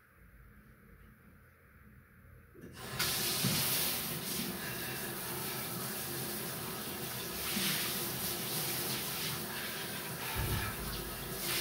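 Water running from a bathtub mixer tap, turned on about three seconds in and then running steadily, with a dull low bump near the end.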